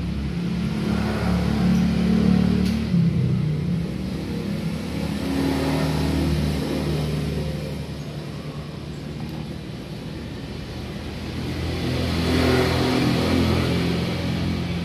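A motor vehicle engine running, its note rising and falling. It is loudest about two seconds in and swells again around twelve seconds in.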